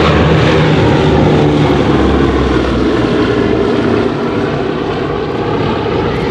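Propeller aircraft's piston engine running loud and steady as the plane passes overhead, easing slightly after about four seconds.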